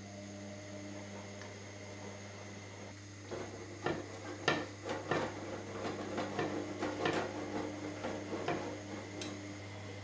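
Kitchenware clinking and knocking in an irregular run of sharp strikes from about three seconds in to near the end, some ringing briefly, over a steady low hum.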